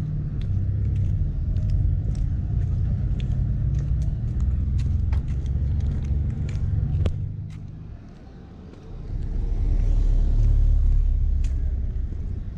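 A loud low rumble, dropping away briefly about eight seconds in, with light clicking steps on paving stones as a person and a puppy walk.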